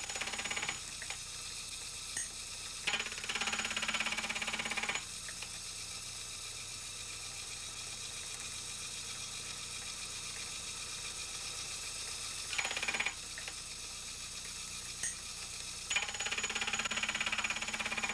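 Milling machine with a gear cutter running, taking test cuts into the clock barrel's rim to set tooth depth: a steady machine hum broken by harsh cutting for about two seconds a few seconds in and again near the end, with a shorter cut around the middle and a few light clicks.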